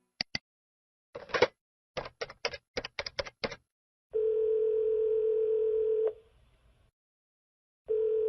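A telephone call being placed: two clicks as the line is picked up, a quick run of about ten clicks as the number is dialed, then the ringing tone on the line, a steady tone of about two seconds, a pause, and the tone again near the end.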